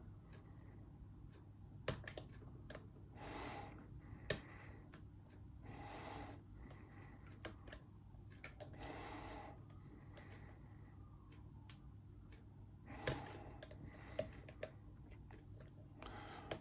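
A lock pick and tension wrench working a lock: scattered small sharp clicks of the pick against the pins, with slow breaths every few seconds.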